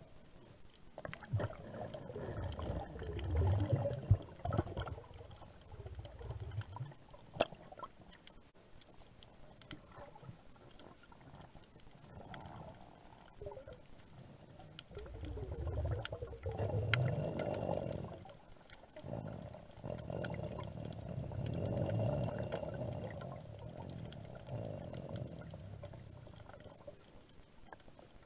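Underwater sound picked up by a camera in its housing: swells of gurgling, bubbling water noise that rise and fade several times, with scattered sharp clicks.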